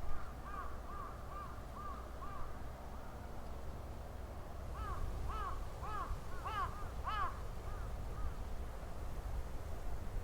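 A bird calling in quick runs of short, arched notes, about three a second: a fainter run at the start and a louder run about halfway through, over a steady low rumble.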